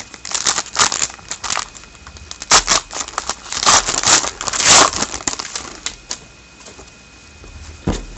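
Hockey trading cards and their packaging being handled, with quick rustling, crinkling and scraping noises for about five seconds. It then goes quieter, with a soft knock near the end.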